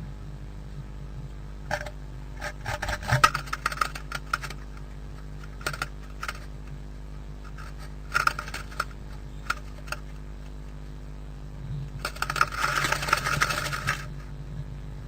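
A blue tit moving about inside a wooden nest box: clusters of sharp taps and scratches from its claws and beak on the wood, with a longer bout of scratching about two seconds long near the end. The bird is inspecting the box.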